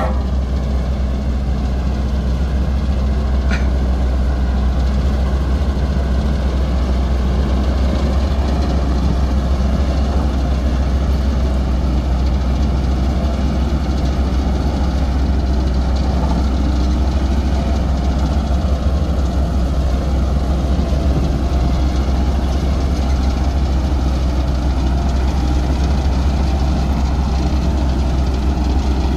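Diesel engine of a padfoot soil compactor running steadily as the roller moves over loose soil, a strong low drone that holds level throughout, with smooth-drum road rollers running behind it.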